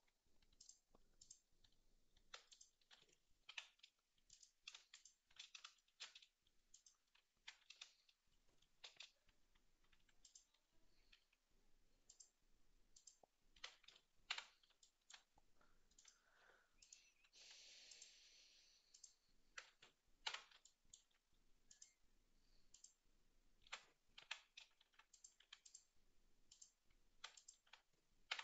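Faint, irregular clicks of a computer mouse and keyboard being worked, with a brief soft hiss a little past halfway.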